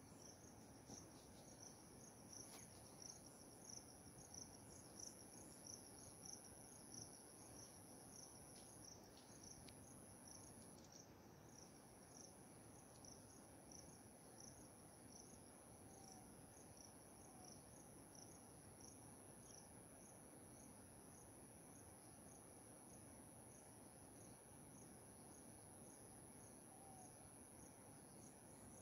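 Faint insects in the field: a steady high-pitched trill, with a separate chirp repeated about twice a second underneath it.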